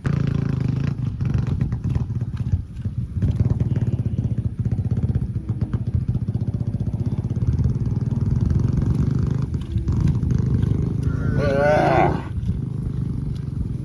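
An engine running steadily with a low rumble. About eleven seconds in, a brief wavering call rises over it for about a second.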